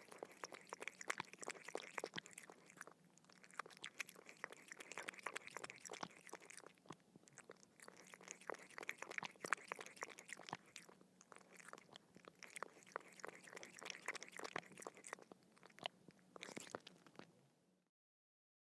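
A dog lapping water: rapid wet tongue-splashes in bouts of a few seconds with short pauses between them, stopping near the end.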